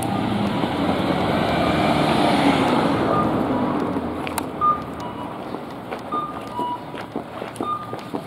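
A car passing close by on the street, its noise swelling and then fading over the first few seconds, followed by brisk footsteps on pavement with a few short high beeps.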